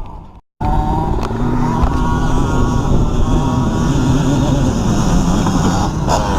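Dirt bike engine running, its revs rising and falling, after a momentary dropout to silence about half a second in.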